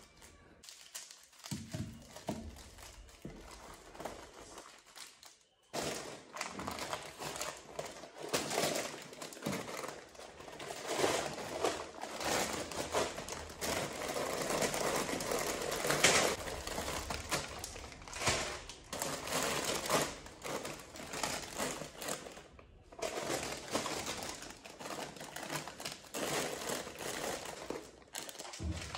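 Plastic food packets crinkling and rustling as they are handled and arranged on a cupboard shelf, with light knocks of cardboard boxes being set down. Quieter at first; the crinkling becomes steady and louder about six seconds in.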